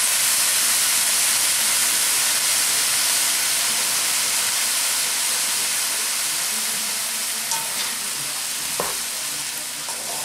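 Diced sweet potatoes and spices sizzling in a hot pan just after a splash of water went in, a steady hiss that slowly dies down. A couple of light clicks come near the end.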